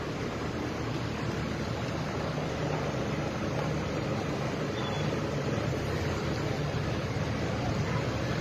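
Steady low engine rumble with wind noise on the microphone, with no distinct events.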